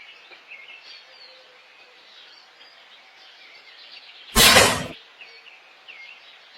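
Small birds chirping and calling in the background over a faint outdoor hush, broken about four seconds in by one loud, brief burst of noise lasting about half a second.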